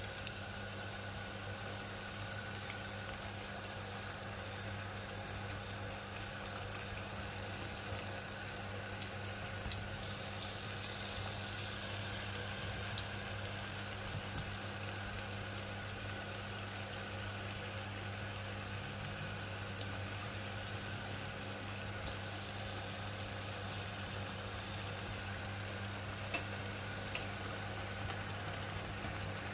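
Ariyatharam, small jaggery rice-flour dough cakes, deep-frying in hot oil: a steady bubbling sizzle with scattered small pops and crackles, over a steady low hum.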